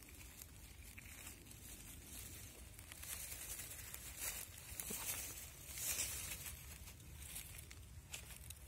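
Faint rustling and crackling of forest-floor litter and undergrowth, with a few louder rustles about three, five and six seconds in.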